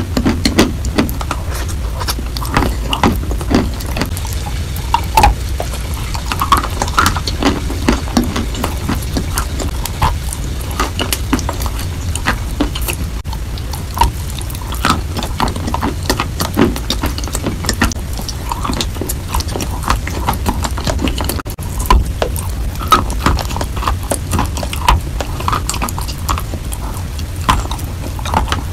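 Close-mic eating of chalk softened into a wet paste: repeated wet bites, smacks and mouth clicks, over a steady low hum.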